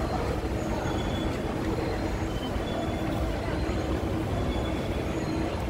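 Steady low mechanical rumble and drone of a mall lobby, the hum of escalator and air-handling machinery, with faint short high chirps now and then.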